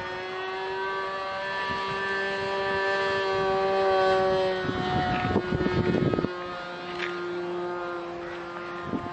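A small fixed-wing drone flying overhead, its propeller motor giving a steady pitched hum that grows louder and slightly higher about four seconds in, then falls back. Wind buffets the microphone about five to six seconds in.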